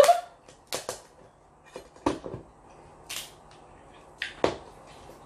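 Snow crab leg shells being cracked and snapped apart by hand: a handful of separate sharp cracks and clicks.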